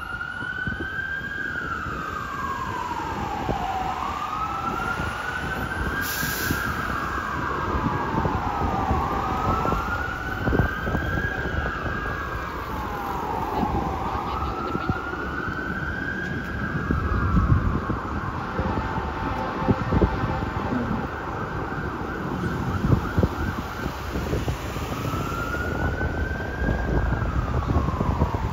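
A 2006 Pierce Quantum fire engine's siren wailing in a slow rise and fall, each sweep taking about four to five seconds, over the low rumble of street traffic.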